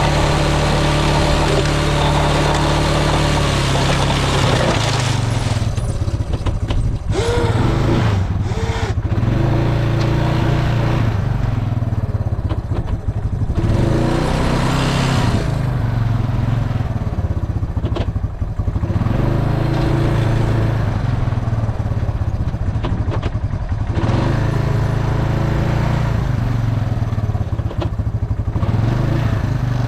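ATV engine running steadily, then revving up and dropping back again and again every few seconds as it pushes a snow plow.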